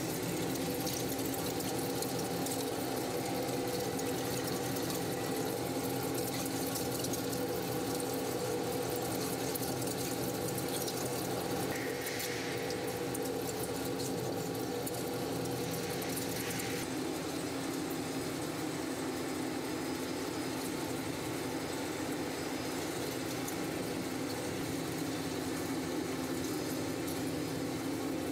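A heavy CNC milling machine rough-milling a steel crankshaft, making a steady mechanical hum of several held tones with a hiss of cutting over it. Its loudness stays even throughout.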